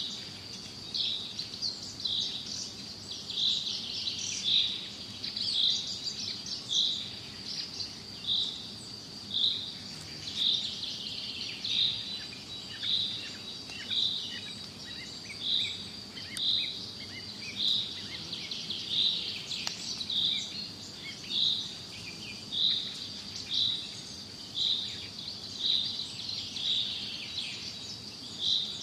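Bird repeating a short high call about once a second, over a steady high-pitched whine and faint twittering of other birds.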